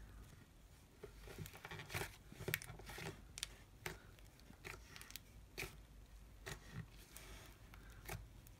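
Faint sticky pops and crackles of soft fluffy slime being stretched, folded and pressed by hand, in short irregular clicks about a second apart.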